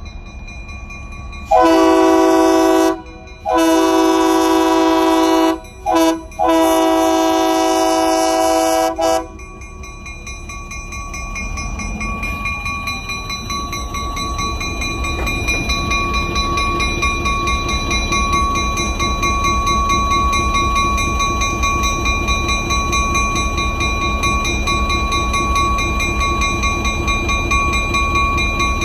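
EMD GP9 diesel locomotive's air horn blowing the grade-crossing signal: two long blasts, a short one and a final long one. Then its two-stroke diesel engine rumbles louder and louder as it rolls up to and through the crossing.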